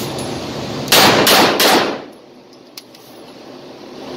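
Three rapid 9mm pistol shots from a Beretta 92A1, about 0.4 s apart about a second in, the first fired double action and the next two single action, echoing in a concrete indoor range lane.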